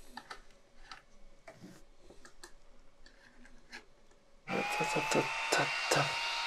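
Light clicks of a T-handle driver and small parts being handled on a headlight projector, then, about four and a half seconds in, a cooling fan starts as the projector is powered on: a steady whir with a whine that rises briefly and settles, and a few knocks of handling.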